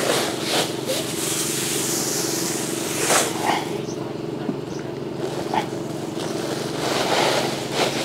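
Steady drone of a small engine, the motorized rice thresher that separates grain from the cut stalks, running under the dry rustle of cut rice stalks being handled and laid on a woven plastic sack. The rustling comes in short bursts about half a second in, around three seconds in and around seven seconds in.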